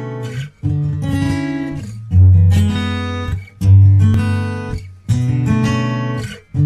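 Background music: guitar strumming chords, a new chord struck about every one and a half seconds, each ringing and fading until the next.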